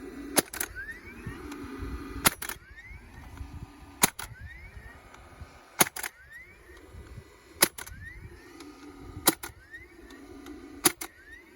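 DeWalt 20V DCFS950 cordless fencing stapler driving staples to fasten fence wire to posts: seven sharp shots about every two seconds, some doubled, each followed by a short rising whine as the tool resets.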